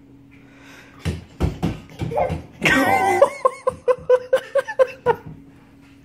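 A person laughing in a quick string of short bursts lasting a couple of seconds, preceded by a few sharp knocks.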